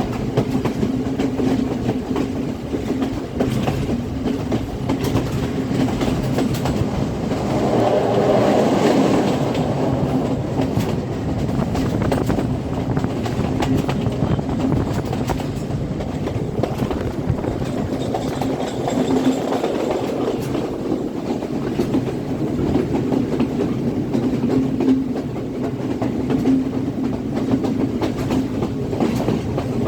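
Express passenger train running along the track, a continuous rumble with wheels clicking over the rail joints, swelling louder about eight seconds in.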